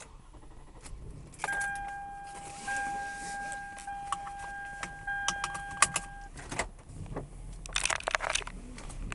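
Car keys jangling and clicking in a 2008 Toyota Solara's ignition, with the dashboard's electronic warning chime sounding a steady tone for about five seconds, starting about a second and a half in. A low rumble runs underneath.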